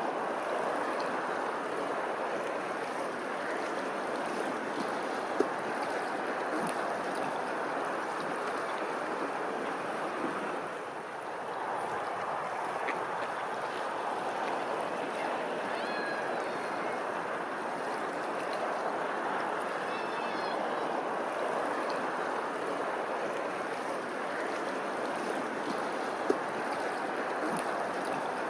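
Running water rushing steadily, an even splashing wash with a slight lull about a third of the way in. Two brief sharp clicks stand out, one early and one near the end.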